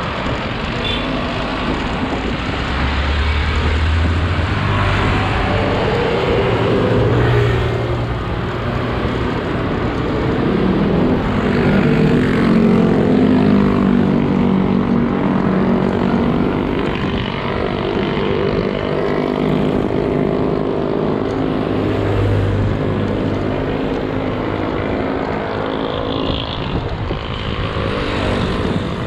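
Motor traffic passing close on the road, engine hum rising and falling as vehicles go by, over steady wind rushing across the microphone of a moving bicycle.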